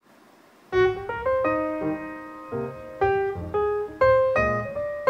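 Background piano music: a melody of struck notes that each fade after the attack, starting a little under a second in after brief near silence.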